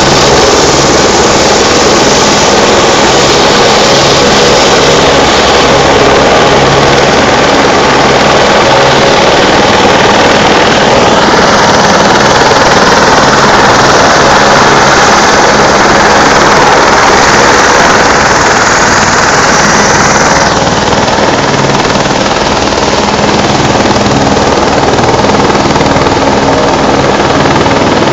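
Rescue helicopter's rotor and turbine engine running loud and steady at close range as it hovers low in a gorge; the tone of the noise shifts twice.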